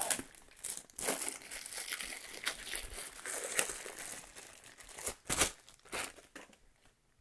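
Packaging crinkling and rustling as it is handled and unwrapped, with a few sharper crackles, the loudest about five seconds in; it dies away near the end.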